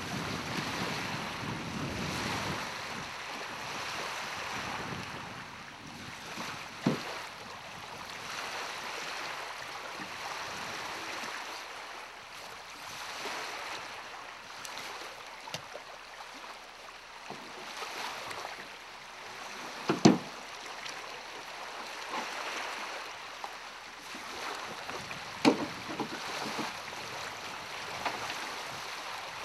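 Wind on the microphone and small lake waves lapping, with a few sharp knocks from a small wooden sailboat's masts and rigging being handled as the masts are stepped. The loudest knock comes as a quick double knock about two-thirds of the way through.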